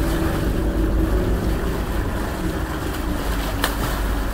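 Steady rush of wind and water as a catamaran moves through the sea, with wind on the microphone. A single sharp click about three and a half seconds in.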